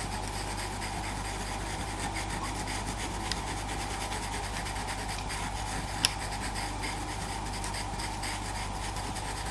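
Faber-Castell Pitt pastel pencil scratching over the textured surface of Pastelmat paper in many quick short strokes as an eye's iris is coloured in. A single sharp click about six seconds in.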